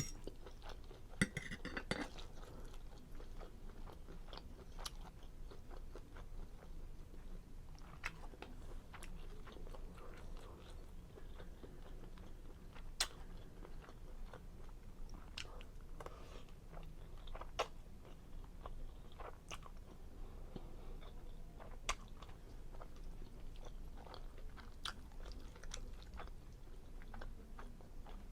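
Close-miked chewing and mouth sounds of someone eating seafood linguine Alfredo, with scattered sharp wet clicks and smacks.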